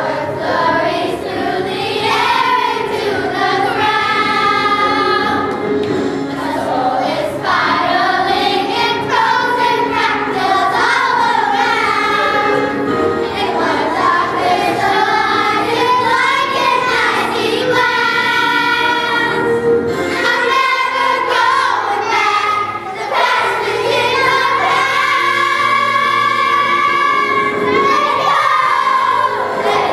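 Elementary school children's choir singing a song together, with some long held notes near the end.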